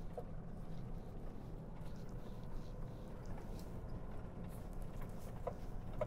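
Steady low rumble inside a pickup's cab as it drives slowly over a rutted dirt farm road, with a couple of faint knocks.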